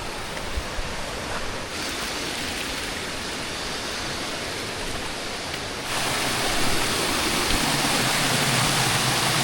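Rushing water, a steady hiss that grows louder and brighter about six seconds in.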